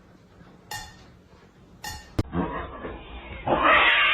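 A cat giving two short meows about a second apart, followed by a louder, noisy stretch near the end.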